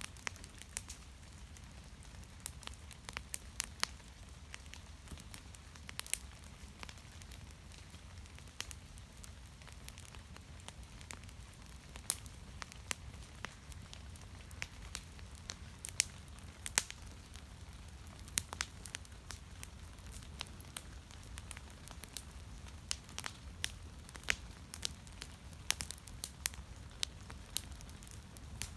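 Wood fire crackling: irregular sharp pops and snaps, several a second at times, over a low steady rumble.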